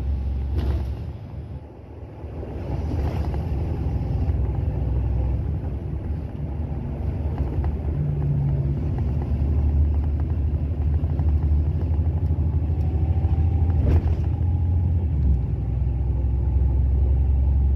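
Cabin sound of a NABI 40-SFW transit bus under way: its Caterpillar C9 diesel drones low and steady, dipping about a second in and then building again. A few short knocks and rattles from the body come through, the plainest at about three and fourteen seconds in.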